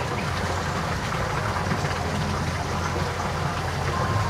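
Steady low rumble with a hiss over it, unchanging, with a faint thin whistle coming in near the end.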